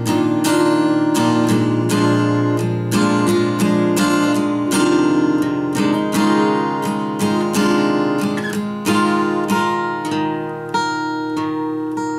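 Acoustic guitar strummed in an improvised instrumental, chords ringing on between repeated strums, growing softer and sparser near the end.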